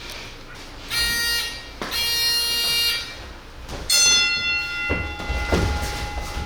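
Boxing round timer going off: two sustained electronic ringing tones, then a struck bell that rings and slowly fades. A few low thumps come near the end.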